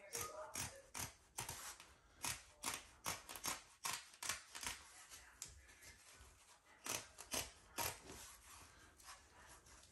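Carpet being trimmed along a row with a hand cutter: a run of short, sharp cutting strokes through the carpet backing, a few a second and uneven, bunching together about seven seconds in. The carpet edge is being cut back a couple of rows so it can be tucked.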